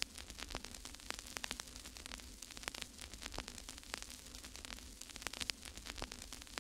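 Faint static: an even hiss broken by irregular crackling clicks, over a faint steady hum.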